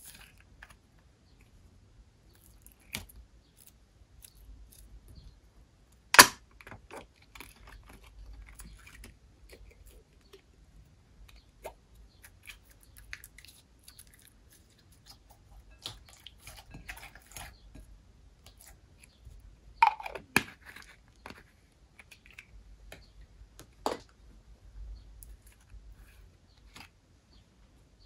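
Slime being handled and mixed: scattered sticky clicks, crackles and squelches, with a few sharper clicks, the loudest about six seconds in.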